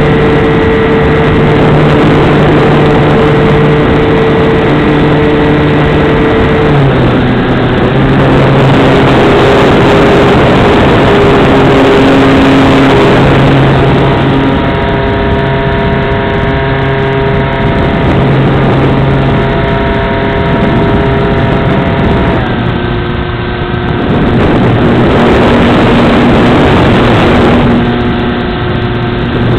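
A large RC plane's engine and propeller running steadily, heard close up from the wing, with rushing air over the microphone. The engine's pitch steps down about seven seconds in and again a little past twenty-two seconds, then rises near the end; the air noise swells louder at times.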